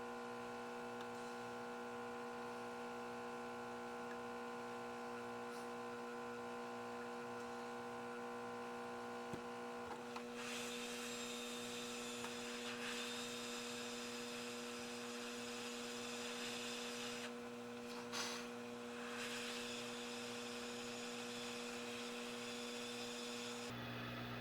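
Steady electrical mains hum with several held tones. About ten seconds in, a hiss joins it and dips briefly twice near the end.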